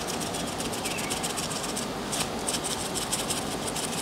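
Plastic shaker bottle of dry poultry rub shaken in a rapid run of short strokes, the seasoning pattering into a stainless steel bowl of raw chicken wings. A steady background noise runs underneath.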